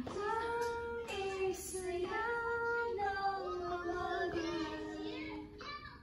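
A child singing a slow tune in long held notes that step down in pitch toward the end.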